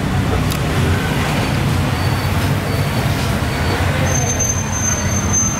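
Steady low rumble of street traffic, with a thin high tone joining about four seconds in.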